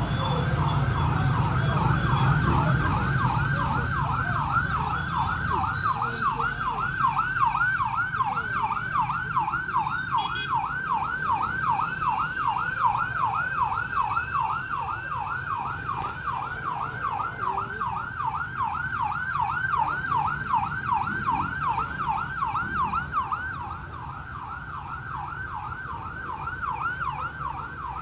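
Siren in yelp mode, sweeping rapidly up and down at two to three cycles a second without a break, over the low rumble of a vehicle. It gets somewhat quieter near the end.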